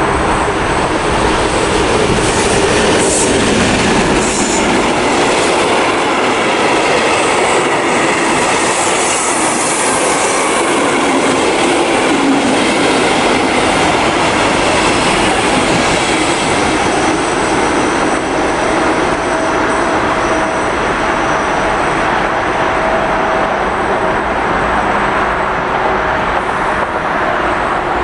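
A passenger train hauled by a large diesel locomotive passing at speed: the locomotive's engine goes by in the first few seconds with its pitch dropping, then a long line of coaches rolls past with steady wheel rumble and clatter. A thin steady whine joins in the second half.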